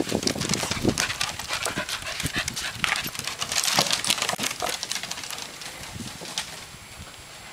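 Scottish terriers' paws and claws clicking on wooden deck boards as they run about: a dense run of quick clicks and knocks that thins out over the last couple of seconds.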